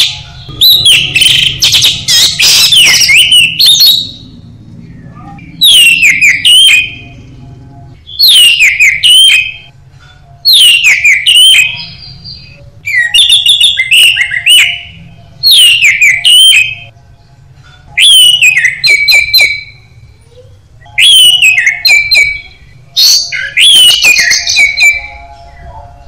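Orange-headed thrush singing loud, rich phrases of quick falling whistles and warbles, a new phrase every two to three seconds, over a low steady hum.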